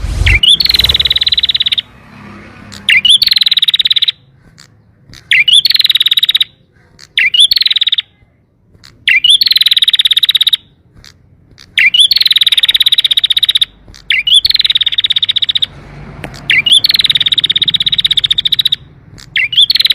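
Domestic canary singing in repeated phrases, each opening with a quick up-and-down note and running into a long, fast rolling trill; about nine phrases with short pauses between.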